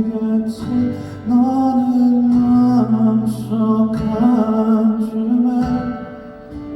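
Live performance of a slow ballad: a male singer holds long sung notes over soft instrumental accompaniment.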